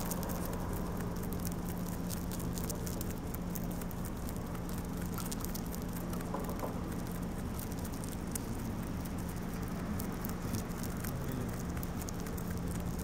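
A rabbit chewing a lemongrass stalk: a fast, steady run of small crisp crunching clicks as it nibbles the stalk in, over a steady low hum.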